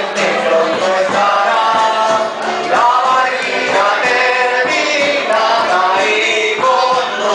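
A folk group singing a vals chilote (Chilote waltz): several voices sing together over steady music.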